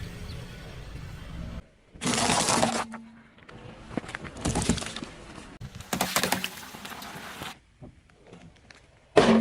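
Objects cracking and crunching as a car's tyres crush them, in several separate bursts; the sharpest and loudest comes near the end.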